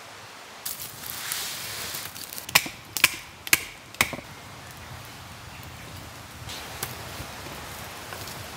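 Kindling being chopped on a rock: about five sharp wooden knocks in a second and a half, a few seconds in, over a steady low hiss.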